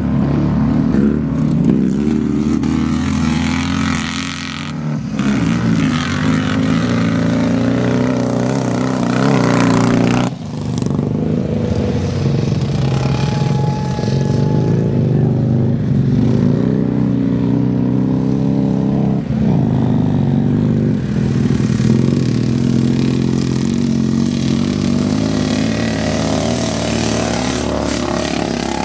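Vintage motocross motorcycle engines revving hard on a dirt track, their pitch rising and falling as the riders open and close the throttle, with more than one engine heard at once.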